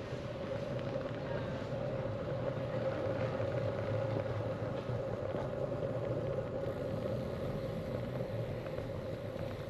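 Steady rush of wind and rolling noise from a road bike being ridden on tarmac, with a constant hum underneath.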